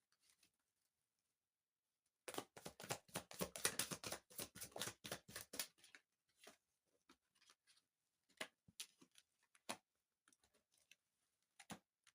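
Tarot cards being shuffled: a dense run of soft papery clicks lasting about three seconds, then scattered single clicks as the cards are handled.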